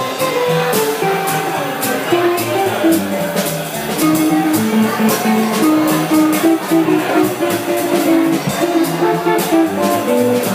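Small jazz group playing bebop: an electric jazz guitar plays a running line of single notes over drums keeping time on the cymbals.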